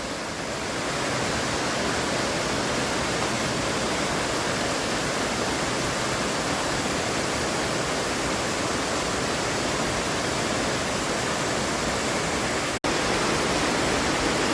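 Steady rush of a small waterfall, water pouring and splashing without a break, with a split-second dropout about thirteen seconds in.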